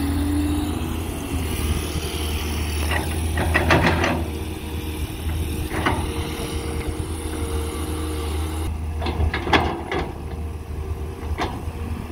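Caterpillar 320D excavator's diesel engine running steadily under working load, with several clanks and rattles as the bucket works and soil drops into the dump truck's steel bed.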